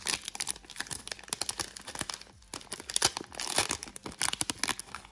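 Foil wrapper of a Pokémon card booster pack being torn open and crinkled by hand, a run of irregular sharp crackles and rips with a short lull a little after two seconds in.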